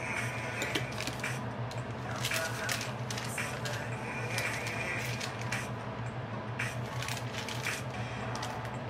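Paper receipts rustling as they are handled, with scattered light clicks and taps, over a steady low hum.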